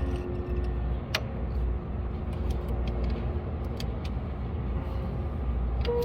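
A hand flex-head ratchet working a 13 mm nut off the AC compressor's mounting stud, giving a few scattered sharp clicks over a steady low rumble.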